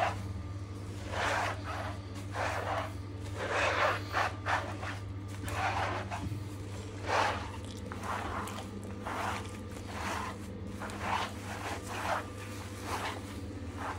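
Rubber grooming mitt scrubbing a Golden Retriever's wet, shampooed coat: repeated rubbing strokes, roughly one or two a second at an uneven pace.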